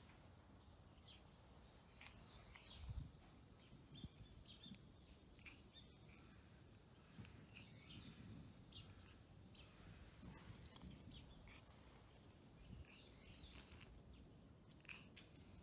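Faint, scattered bird chirps over a low, steady outdoor background.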